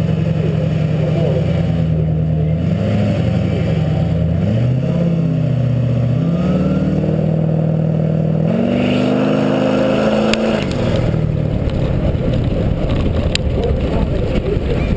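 Pickup truck engine running at the start line with a couple of revs, then pulling hard off the line about eight and a half seconds in. Two seconds later the engine note drops away and a heavy rush of wind and tyre noise on the dirt takes over as the truck runs down the strip.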